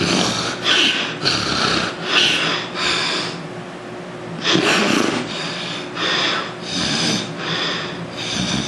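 A man snoring and breathing noisily in his sleep, in rhythmic rasping bursts about two a second with a short pause midway. It is the sign of nasal obstruction, which he puts down to weight gain.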